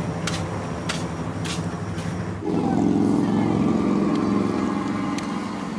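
Footsteps on concrete pavement, about one every half second or so. About two and a half seconds in, a motor vehicle's engine comes in louder and runs steadily.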